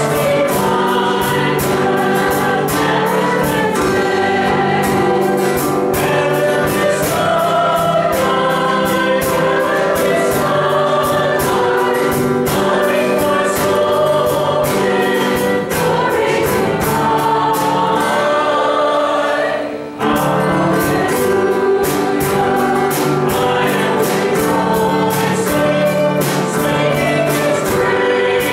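A worship song sung to a steadily strummed acoustic guitar, with a brief break about twenty seconds in.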